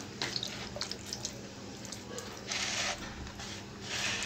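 Hands squeezing and rubbing a thick spice-paste marinade into raw chicken in a plastic bowl: wet, sticky squelches and small clicks, with two longer swishes a little past the middle and near the end. A faint steady hum runs underneath.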